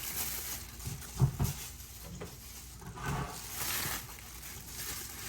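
Irregular rustling of dry corn husks and silks as ears of corn are handled and shucked by hand, with a couple of soft knocks about a second in.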